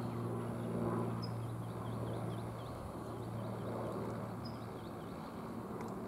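An airplane's engine droning overhead, a steady low hum that weakens after about a second and slowly fades. Faint high bird chirps repeat quickly through most of it.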